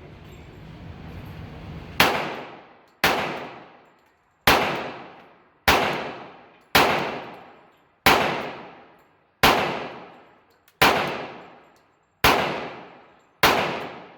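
Ten shots from a Glock 21 pistol in .45 ACP, fired one at a time about a second to a second and a half apart. Each shot has a long echoing tail in the indoor range.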